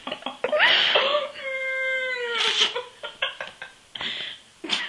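Domestic cat meowing: one long meow that rises at the start, holds a steady pitch for about two seconds, and drops away at the end.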